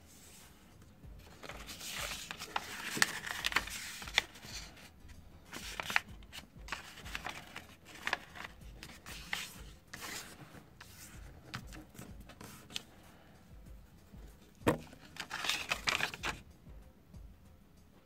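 A square sheet of paper being folded by hand along its diagonals and creased flat on a table: soft rustling with sharp crinkles and taps, in two busier spells, one about two seconds in and one near the end.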